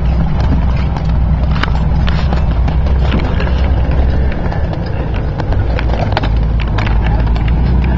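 Jeep CJ5 engine running with a steady low rumble, heard from inside the open-framed cab, with frequent sharp knocks and rattles as the Jeep works over a rough trail.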